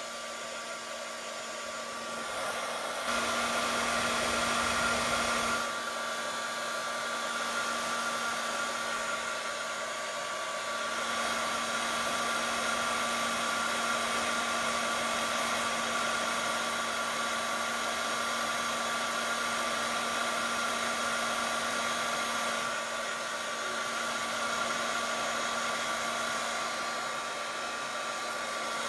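Small handheld hair dryer blowing steadily with a whirring hum, drying wet watercolour paint on paper. About three seconds in it grows louder and deeper for a couple of seconds, then settles back.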